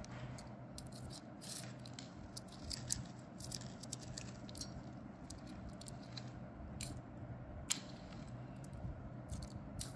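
Faint, scattered crackles and clicks of crushed papdi (crisp fried flour wafers) being sprinkled by hand onto yogurt-covered dahi baray, over a steady low hum.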